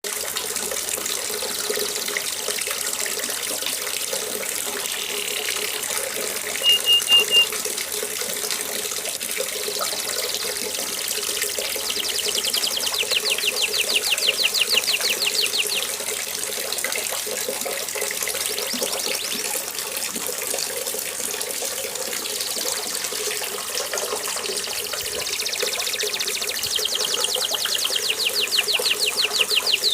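Steady rain noise with a domestic canary singing over it: a short run of high notes about seven seconds in, then fast rolling trills of repeated rising sweeps for a few seconds in the middle and again near the end.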